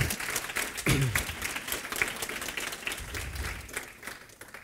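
Audience applauding. The clapping thins out and fades away near the end.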